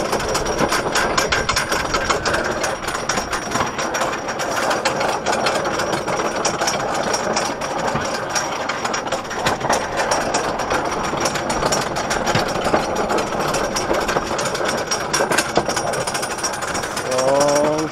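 Great American Scream Machine's wooden roller coaster train rattling and clattering along its track at speed, a dense rapid chatter over a steady rush of noise.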